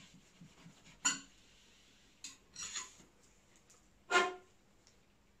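A soft-tipped cleaning rod run up and down inside the barrel of a Derya CRX400 pump-action shotgun: a few separate scraping strokes, the loudest about four seconds in.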